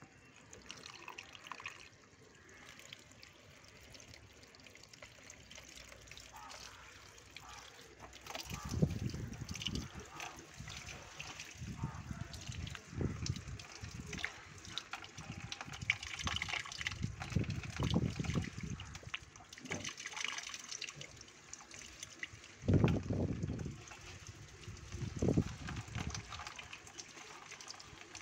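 Water pouring onto the leaves of a plant, splashing and trickling, with several dull low rumbles coming and going, the loudest one near the end.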